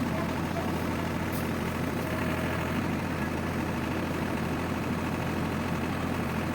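Yanmar combine harvester's diesel engine running at a steady speed, with an even hum and no revving.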